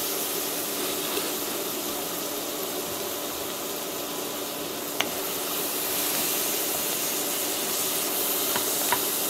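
Onions and portobello mushrooms sizzling steadily in olive oil in a pot as they cook down, with a single light click about halfway through.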